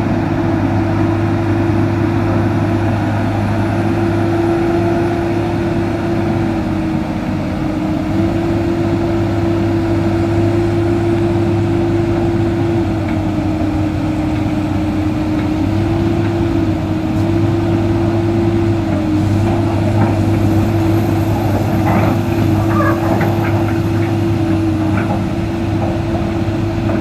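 Komatsu crawler excavator's diesel engine running steadily under load, with a steady hum as the machine swings its upper body and moves on its tracks. A few short metallic knocks come near the end.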